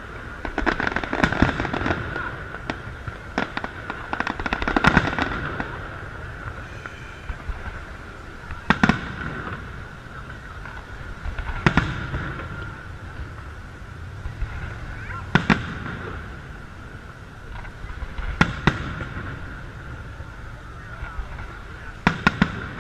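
Aerial firework shells bursting overhead: sharp bangs every few seconds, several close together in the first two seconds and a pair near the end.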